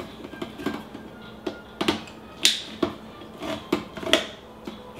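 Handheld manual can opener being cranked around the rim of a steel food can. Each turn of the key gives a sharp click as the blade cuts the lid, in an uneven series of about eight clicks.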